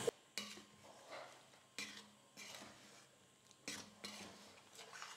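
Faint scrapes and clinks of a metal slotted spatula stirring thick banana curry in a stainless steel kadai, a few short separate strokes.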